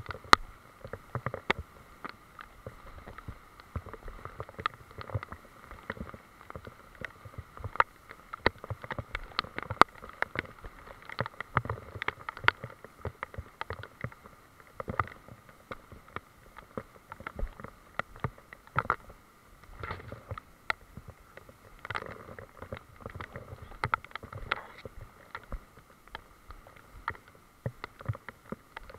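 Irregular clicks and knocks, several a second, from a camera being jostled as it is carried along a wet forest path, over a faint steady hiss.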